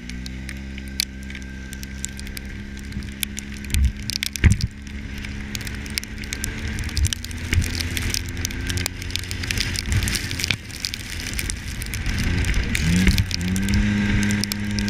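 Side-by-side UTV engine running steadily as it drives over snow, with rattles and knocks from the vehicle throughout and two sharp knocks about four seconds in. Near the end the engine note rises and holds higher.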